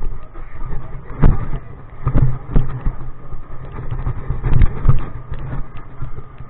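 Footsteps and knocks from a body-worn camera jostling as its wearer walks on paving, irregular sharp thuds over a steady low rumble.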